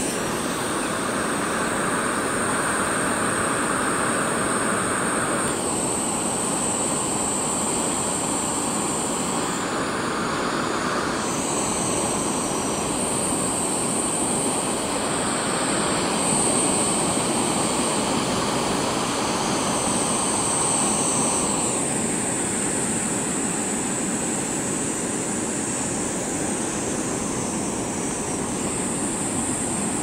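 Steady roar of ocean surf breaking on a beach, a continuous wash of noise whose tone changes abruptly several times.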